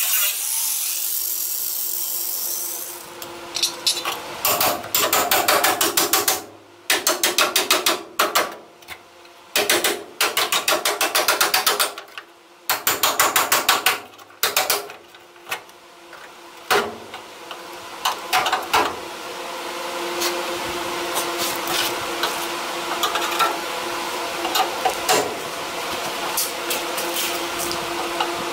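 Hand hammer striking the steel of a vehicle's lower A-pillar. The blows come in quick bursts of rapid taps, then single strikes spaced apart over a steady hum. A small grinder runs briefly at the start and winds down.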